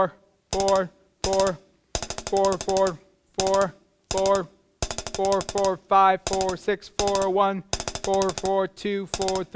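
Rapid clicking drumstick strokes on a hi-hat cymbal, mixed with short buzzing vocal sounds from the player. At first they come in short separate bursts with gaps between, then run almost without a break from about five seconds in.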